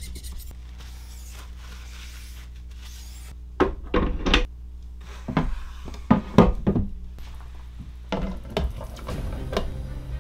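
Hard knocks and clacks of cured resin 3D prints and a resin printer's build plate being handled and set down on a workbench, irregular and coming in small clusters from a few seconds in.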